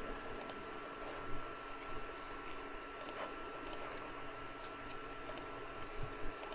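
A handful of faint computer mouse clicks, each a quick double tick, spaced about a second apart, over a thin steady high tone in the background.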